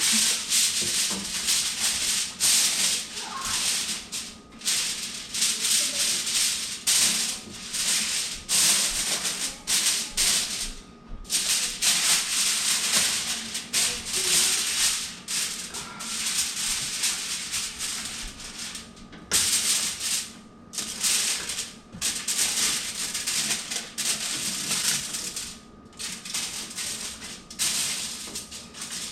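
Repeated rough rubbing or brushing strokes against a surface, one or two a second, broken by brief pauses.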